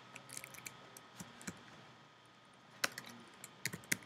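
Typing on a computer keyboard: scattered key clicks in short bursts, with a pause of about a second in the middle.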